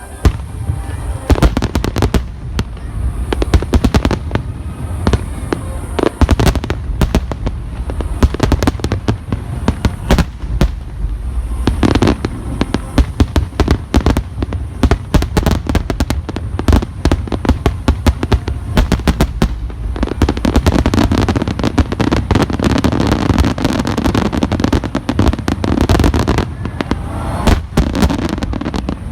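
A rapid barrage of aerial firework shells bursting, dozens of loud booms overlapping one another with hardly a gap, thickening into an almost continuous rumble of bursts in the last third.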